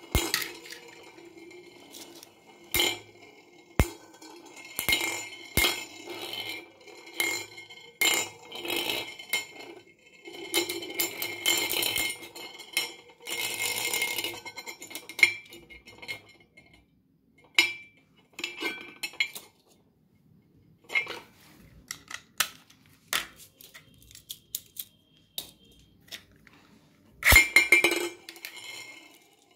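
Two metal Beyblade spinning tops spinning in a shallow steel dish, clinking and clashing against each other and rattling on the metal. The clashes come in irregular sharp clinks, with a dense run of rapid hits in the middle, only scattered faint clicks later, and one loud clash near the end.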